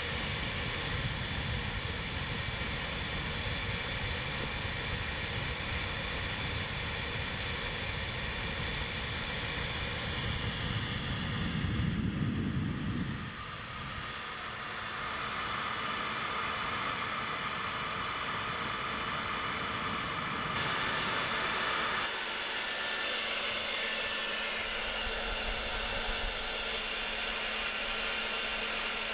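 Hair dryer running steadily with a constant whoosh. A low rumble swells about twelve seconds in and then drops away, and the sound shifts again about twenty-two seconds in as the airflow is moved.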